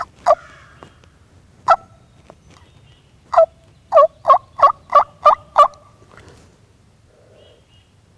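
A run of turkey yelps: a couple of single notes, then seven quick, loud, two-toned yelps at about three a second that stop a little past halfway.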